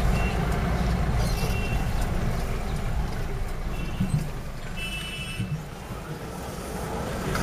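Taxi's engine and road noise as a steady low rumble heard from inside the cabin, with a few short high beeps scattered through it.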